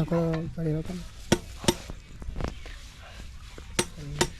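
A short stretch of a voice, then a few scattered sharp knocks and clicks, with a brief voice again near the end; no engine is heard running.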